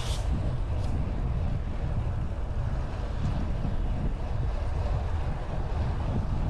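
Wind buffeting the microphone while riding a bicycle at speed: a steady, gusty low rumble, with a brief hiss right at the start.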